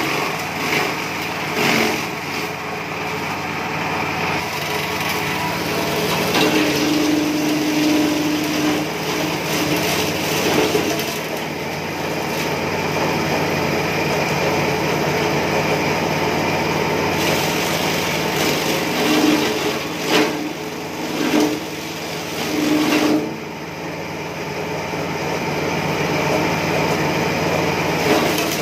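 Small single-cylinder petrol engine driving a forage chopper, running steadily while green grass is fed through the blades and chopped. The chopping comes in uneven louder surges, several close together about two-thirds of the way in.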